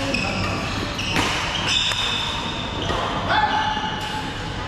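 Badminton rally: shoes squeaking on the court floor in short, high squeals, some gliding upward, with a few sharp racket strikes on the shuttlecock.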